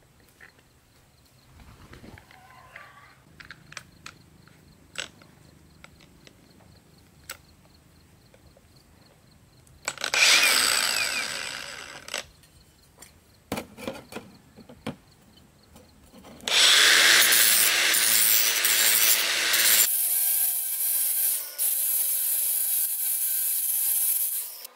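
Cordless angle grinder with an abrasive disc: clicks and knocks as it is put together, a short run about ten seconds in that winds down, then running again from about two-thirds through. Near the end the disc grinds the edge of a steel knife blade, a harsh high scraping hiss.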